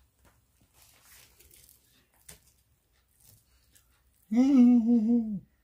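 Faint rustling and clicking as pieces of fried chicken are handled in a cardboard takeout box. About four seconds in, a person's voice holds one drawn-out, slightly wavering sound for about a second, louder than everything else.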